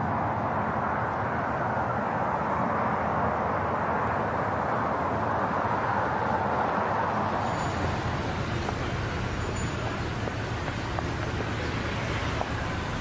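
Steady street traffic noise: the continuous hum and rush of passing cars.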